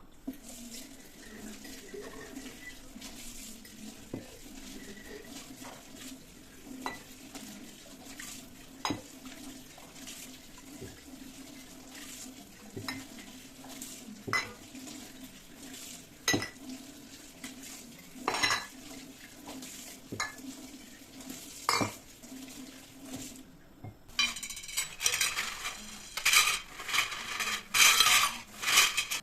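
Kitchen utensils knocking against dishes and pans: single clinks every couple of seconds over a steady low hum, then near the end a quick run of clattering and scraping, like stirring in a pan.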